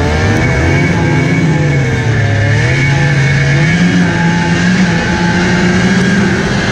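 Snowmobile engine running as the sled travels over snow. Its pitch dips and rises with the throttle a few times, then holds steady and a little higher from about four seconds in, with a steady high whine above it.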